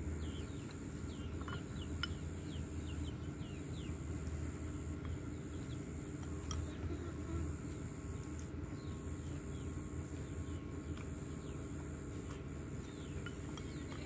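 Garden ambience: birds chirping in many short falling calls over a steady high insect drone, with a few faint clicks of chopsticks against bowls.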